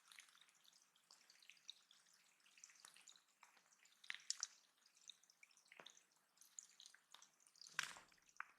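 Faint water dripping and trickling into a bird pond, a scatter of small irregular drips with a slightly louder splash near the end.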